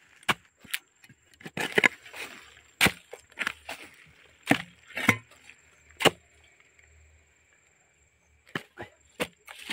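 Long-handled digging hoe chopping into soil and tree roots: a dozen or so sharp, irregular strikes, pausing for about two seconds past the middle before starting again.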